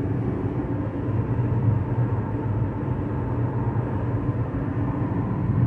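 Steady low drone of tyre and engine noise inside a Chevrolet Equinox's cabin, cruising at highway speed.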